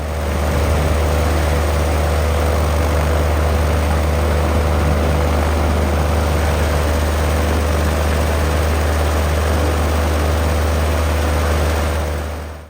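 Viking 130 aircraft engine, a Honda-based four-cylinder, running steadily at a constant speed with its propeller turning. It holds an even low drone with a steady hum above it, and no revving.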